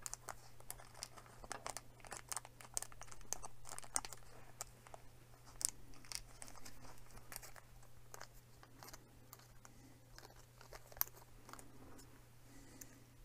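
A small plastic parts bag crinkling and rustling in the fingers as tiny screws are picked out of it, with small clicks of parts being handled. The sound is faint and thins out after about eight seconds, over a steady low hum.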